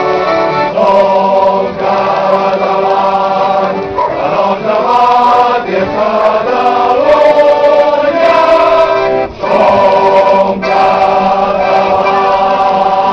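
Choir singing held chords in phrases of one to two seconds, with brief breaks between the phrases.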